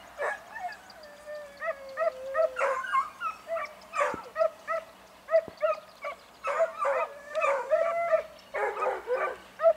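Hunting dogs baying on a fox chase. A long falling howl about a second in is followed by a run of short yelps at about three a second, then longer bays and several voices overlapping near the end.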